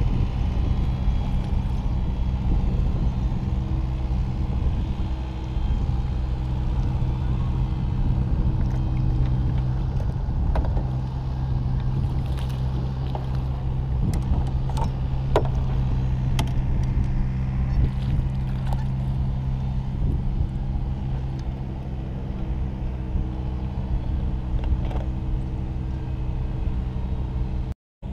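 A steady low engine hum runs throughout, with scattered light clicks and knocks in the middle stretch.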